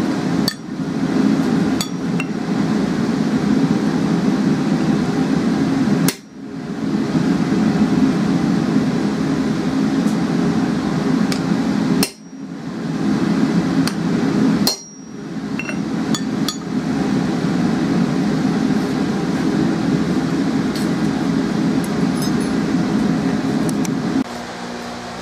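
A blacksmith's hammer striking hot steel on an anvil, about ten scattered single blows and clinks, a few of them heavy, including blows on a hand punch held on the hook to punch its hanging hole. Under them a gas forge burner gives a loud, steady roar, which cuts off near the end.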